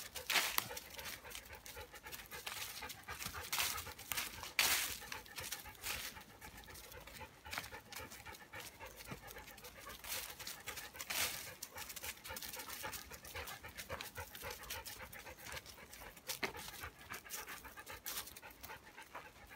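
A dog panting while walking, with irregular crunching steps on a dry, leaf-strewn path.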